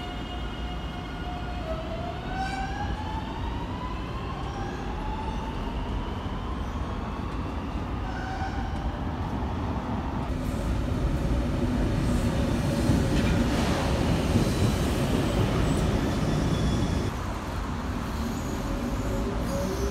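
Electric commuter train accelerating away from the platform, its traction motors whining in several rising tones over the rumble of wheels on rail. About halfway through, a louder rolling rumble builds, then drops off suddenly near the end.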